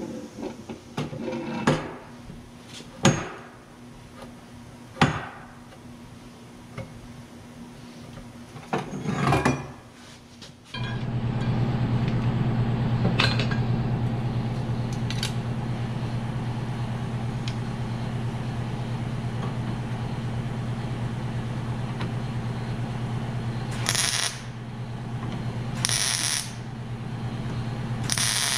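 Sharp metal knocks and clanks from a pry bar working a crushed car quarter panel and bumper area. Then, after a sudden change, a welder runs with a steady electrical hum, with short crackling arc bursts near the end.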